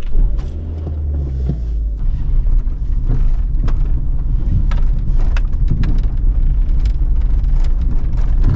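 Suzuki car's engine starting up, then the car driving off over rough gravel ground, heard from inside the cabin as a steady low rumble with scattered knocks from bumps.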